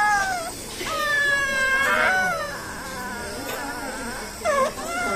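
Baby whimpering and crying in a run of high, drawn-out wails, the longest about a second and a half.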